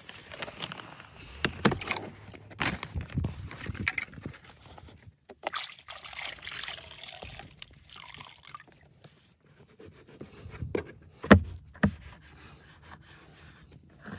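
A microfiber cloth being swished and squeezed in a bucket of soapy water, with water splashing and trickling. Several sharp knocks of things being handled break in, the loudest about three-quarters of the way through.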